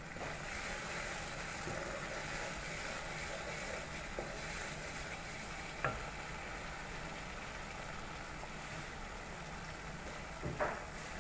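Onion–ginger–garlic paste with cumin seeds frying in hot oil in a pan, a steady sizzle, with a few short knocks, the loudest near the end.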